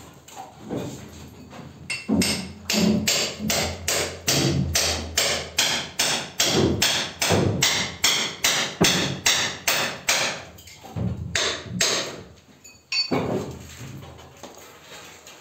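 Rapid hammering, about three blows a second. It starts about two seconds in, slows to a few last blows and stops some three seconds before the end.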